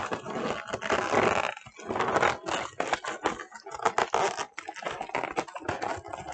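Air-filled foil Starpoint balloons crinkling and latex balloons rubbing and squeaking as they are handled and twisted together, in irregular rustling bursts.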